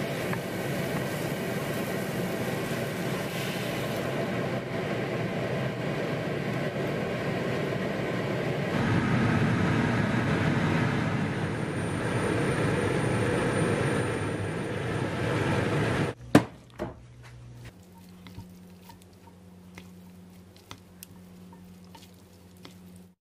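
Spice paste with lemongrass sizzling in a frying pan, then a chicken sauce bubbling at a simmer. About 16 seconds in this gives way to a low steady hum with a sharp knock and a few light clicks.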